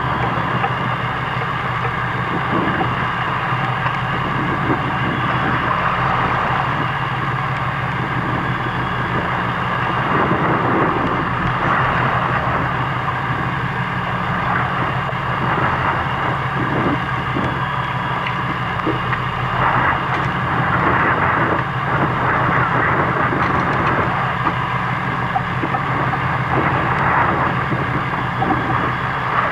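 Fishing boat's engine running at a steady hum, with a rushing noise over it that swells and eases.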